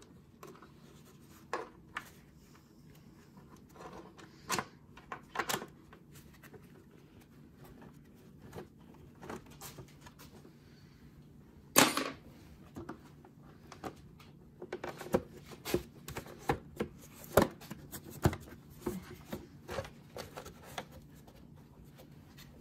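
Scattered metal clicks and knocks of a 5 mm hex key working loose the bolts on an engine's top cover, over a faint low hum. One sharp knock about halfway through, then a run of quicker clicks later on.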